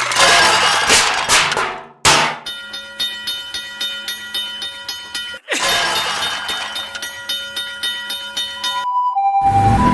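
Cartoon train sound effects: rapid regular clicking over steady tones, with a falling swoop about halfway. Near the end a Japanese-style ambulance siren starts its two-note high-low call.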